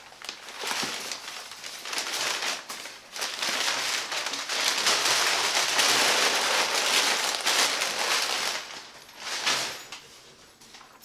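Crumpled brown kraft packing paper crinkling and rustling as it is pulled out of a cardboard box and tossed aside, in several surges with the longest in the middle, dying away near the end.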